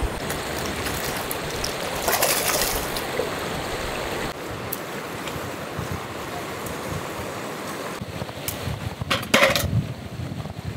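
Shallow river rushing over rocks, a steady hiss of running water, with a few sharp knocks near the end.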